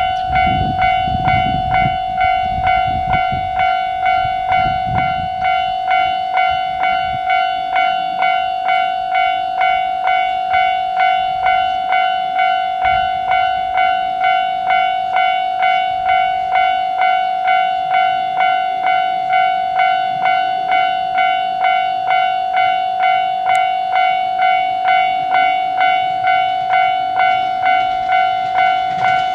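Japanese railway level crossing warning bell ringing steadily, an electronic ding repeating just under twice a second. A low rumble sits under it for the first five seconds.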